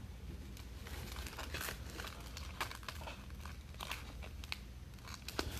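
Foil trading-card pack wrappers being torn open and crinkled, a faint run of short crackles and rustles.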